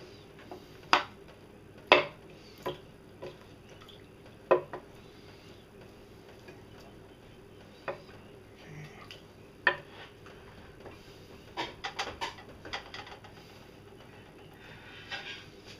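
Scattered sharp clinks and knocks of kitchen utensils and dishes being handled, with a quick run of them a little past halfway, over a faint steady hum.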